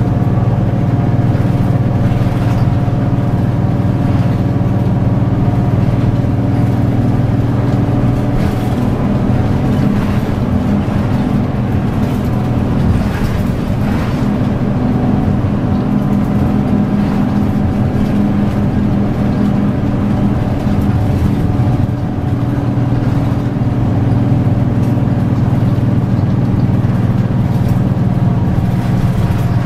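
Route bus driving on a winding road, heard from inside the cabin near the front: a steady, loud diesel engine drone that shifts slightly as the bus slows and pulls through the curves.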